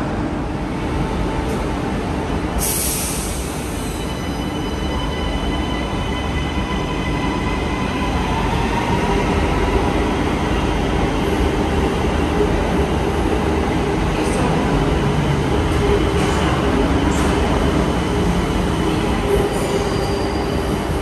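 FGC metro train running in an underground station: a constant low rumble with several steady high squealing tones that set in about four seconds in and hold. A brief loud hiss comes about three seconds in.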